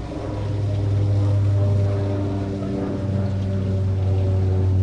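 A steady low motor hum with a stack of even overtones, getting a little louder about a second in.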